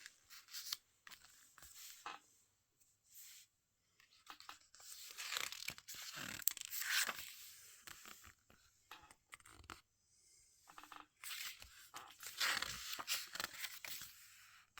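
Pages of a small paper CD booklet being turned and handled, rustling and crinkling in bursts, loudest in the middle and again near the end.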